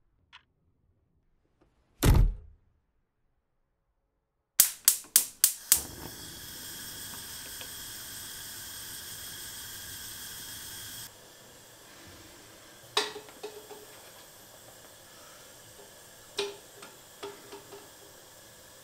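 A single heavy thud, then a gas hob burner being lit: about six rapid igniter clicks followed by the flame hissing steadily for about five seconds. Later come two clinks of eggs set into a stainless steel saucepan, each with a short metallic ring.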